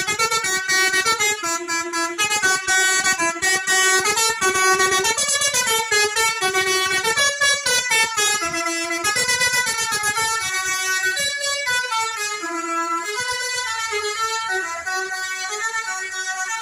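A loud multi-tone musical horn playing a quick, unbroken tune, stepping from note to note two or three times a second.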